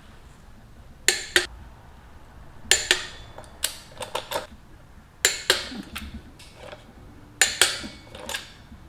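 Click-type torque wrench on a motorcycle's rear brake-disc bolts: sharp metallic clicks, often two close together, in groups every second or two, the sign of each bolt reaching its set torque of 31 foot-pounds.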